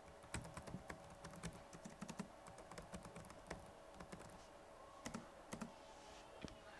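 Chuwi GemiBook Plus laptop keyboard being typed on: fairly quiet, irregular key clicks, with a short lull near the fifth second.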